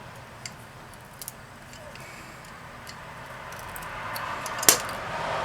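Plastic tabs being pried out of a Flojet water pump motor's commutator: a few faint ticks and clicks, then a scraping, rustling noise that grows louder, with one sharp click about four and a half seconds in.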